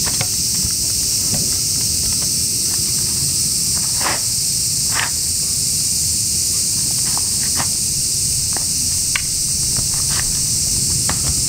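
Steady, high-pitched insect chorus, with scattered short rustles and taps over it, two clearer ones about four and five seconds in.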